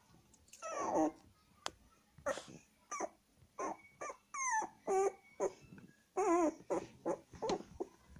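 Toy poodle puppy whimpering: about a dozen short, wavering cries, some gliding up or down in pitch, the longest about a second in.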